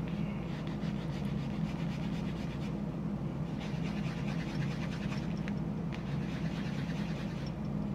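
A small plastic model-kit part rubbed rapidly back and forth over a foam sanding block: a steady, fast scratching, over a steady low hum.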